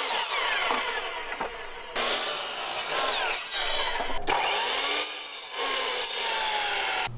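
Craftsman electric compound miter saw running and its blade cutting through wooden boards. The sound comes in two long stretches, with a dip and sudden restart about two seconds in, and cuts off sharply near the end.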